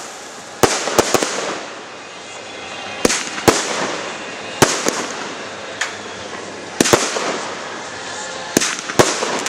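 Fireworks display: aerial firework shells bursting overhead in a run of sharp bangs at irregular spacing, some in quick pairs. Each bang trails off in an echoing tail.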